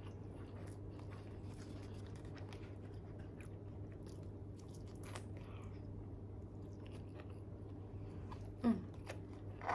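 Someone chewing a mouthful of food, with faint small clicks, over a steady low hum. A short voiced sound comes near the end.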